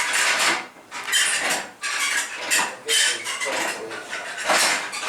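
Metal clattering and rattling in irregular bursts, several a second, from the observatory's roll-off roof hardware being worked as the roof is opened.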